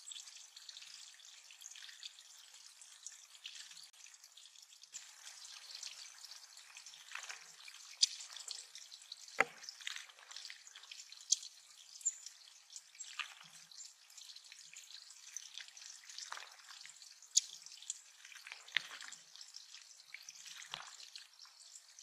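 Water trickling over stones into a shallow bird pond, a steady light hiss broken by about eight sharp drips and small splashes, some from a Black-throated Green Warbler bathing in the shallows.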